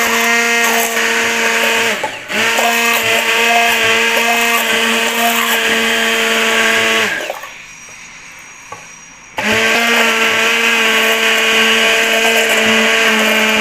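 Electric stick (immersion) blender running in a tall plastic beaker with a steady, even whine. It stops briefly about 2 seconds in, stops again for about two seconds near the middle, then starts up again. It is emulsifying egg and soybean oil, added a little at a time, into a mayonnaise-style sauce.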